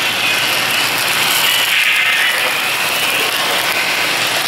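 Model freight train rolling past close by: a steady rolling rumble and clatter of its wheels on the track.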